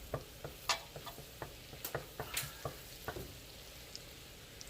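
Minced garlic and ginger sizzling in melted butter in a wok, with a utensil stirring and clicking against the pan in quick irregular strokes that thin out near the end.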